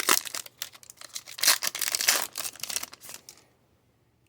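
Foil wrapper of a Topps Chrome trading card pack crinkling as it is torn open and handled. The crackling comes in a quick run of bursts and stops about three seconds in.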